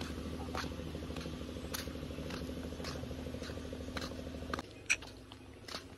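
A steady, low, engine-like hum from an unseen motor cuts off suddenly about three-quarters of the way through. Faint footsteps on a paved path tap along about twice a second.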